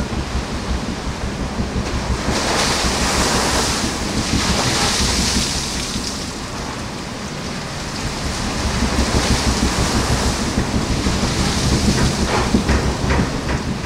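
Sea rushing past the hull of the bark Europa under sail, with her bow wave hissing and swelling twice, and heavy wind rumble on the microphone. A few short knocks come near the end.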